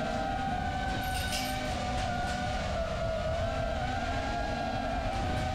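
Motors and propellers of a 3.5-inch FPV quadcopter, the Emax Babyhawk II HD, whining steadily as it flies. The pitch drifts slightly up and down with throttle, over a rough rumble of wind on the onboard microphone.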